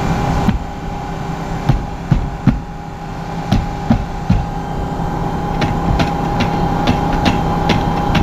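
Engine idling steadily, with scattered knocks and clicks from handling gear while the planter is loaded with seed.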